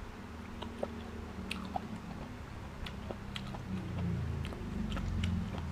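A person chewing raw beef slices with the mouth close to the microphone, with many short, wet smacking clicks.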